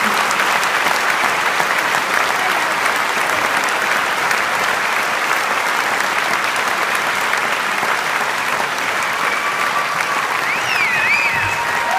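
Concert audience applauding steadily, with a few whistles near the end.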